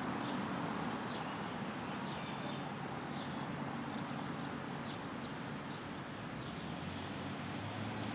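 Steady outdoor background rumble with small birds chirping several times over it; a low hum comes in near the end.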